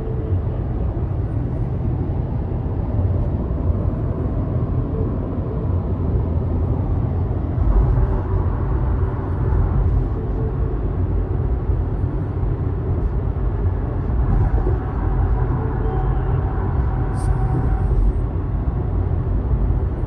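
Steady road noise inside a moving car's cabin: a low rumble of engine and tyres on the highway.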